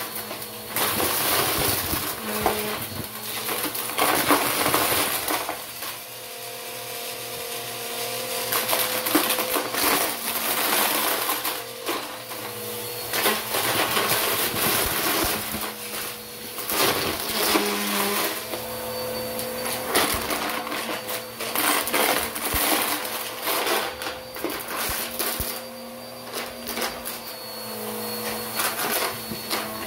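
Bissell upright vacuum cleaner running over carpet, its motor humming steadily while plastic bottle caps and fake coins are sucked up, clattering and crunching through the brush roll in spells of dense rattling.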